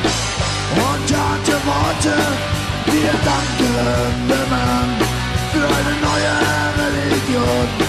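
Rock band playing an instrumental break: a lead guitar melody with bending notes over distorted rhythm guitar, bass and a steady drum beat.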